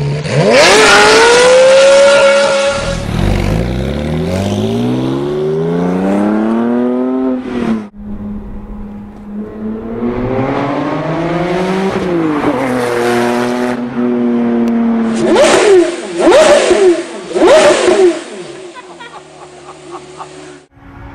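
High-performance car engines revving and accelerating, the exhaust note climbing through the revs and dropping back with each gear change. Near the end come several quick, sharp throttle blips, then a steadier, quieter idle.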